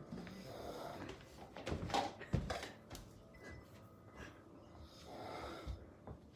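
A man snoring, with wheezy, snorting breaths every couple of seconds and a longer one near the end; a couple of sharp knocks come in between.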